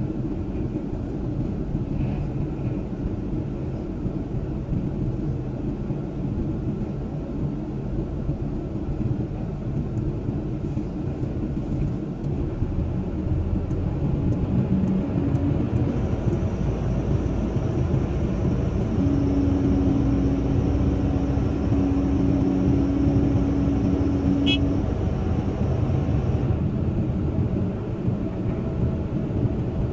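Caterpillar 320C excavator's diesel engine running steadily, heard from inside the cab. From about halfway a dump truck's engine adds to it and grows louder as the truck backs up beneath the bucket, with a steady tone for several seconds.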